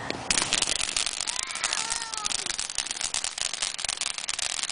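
Firecrackers going off in a dense, rapid crackle of pops that starts suddenly a moment in and keeps going.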